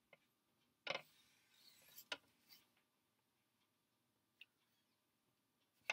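Faint taps and a short scratchy stroke of a marker writing on a white writing surface, about one and two seconds in, with a couple of tiny ticks after.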